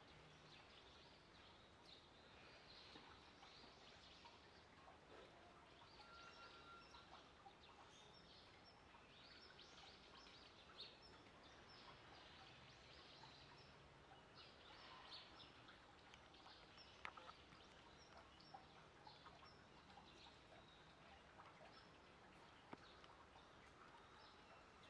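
Near silence: faint outdoor ambience with scattered small bird chirps and a few soft clicks.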